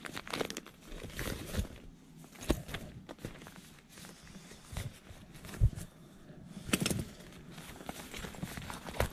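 A black purse being handled: rustling and crinkling of its glossy material, scattered clicks from its zipper pulls and hardware, and a couple of dull thumps as it is knocked about.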